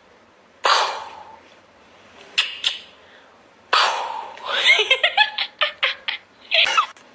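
A person laughing in a run of short bursts through the second half, after a few short, sharp breathy outbursts.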